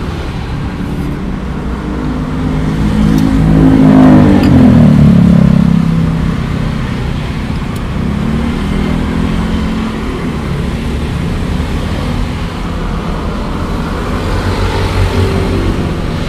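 Road traffic: a motor vehicle's engine passes close by, loudest about four seconds in, its pitch falling as it goes past, over a steady drone of traffic.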